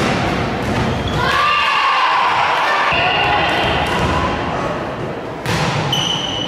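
A volleyball struck hard right at the start, followed by shouting from players and spectators. A second sharp hit comes about five and a half seconds in, then a short high whistle blast near the end.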